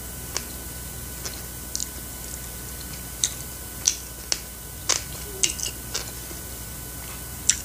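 Chewy rice cakes (tteokbokki) being chewed: about a dozen scattered wet clicks and smacks from the mouth, unevenly spaced. A metal spoon clinks on the plate as it scoops sauce, the clearest sharp tick coming about five seconds in.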